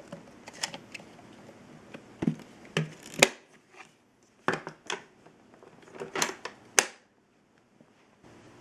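A string of sharp clicks and knocks, about a dozen, uneven in spacing, with no motor running.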